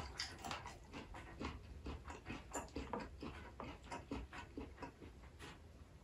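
A person chewing food close to the microphone, a steady rhythm of soft mouth sounds about three chews a second.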